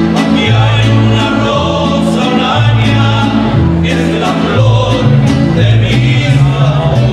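Live mariachi band playing a song with singing: trumpets, violin and guitars over the guitarrón's plucked bass line, which steps through separate low notes.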